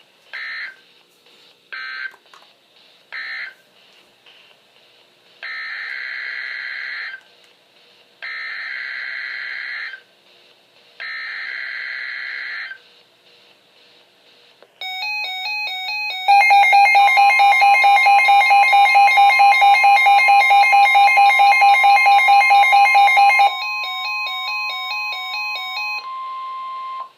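NOAA Weather Radio SAME data bursts, a harsh two-tone buzz: three short end-of-message bursts, then three longer header bursts announcing the next alert. Then the steady 1050 Hz warning alarm tone sounds for about ten seconds, with a louder, fast-pulsing electronic alarm beep over the first part of it that stops a few seconds before the tone ends.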